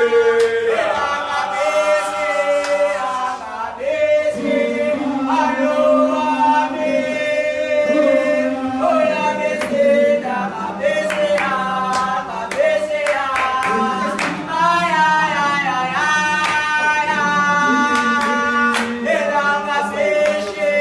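A group of teenage boys singing a gwijo, a South African a cappella chant-song, together in harmony on long held notes. Sharp short hits sound between and under the singing, mostly in the second half.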